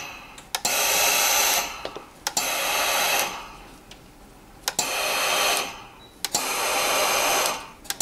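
Pro Express steam iron giving four hissing bursts of steam, each starting with a sharp click, as it presses fusible interfacing onto a skirt waistband.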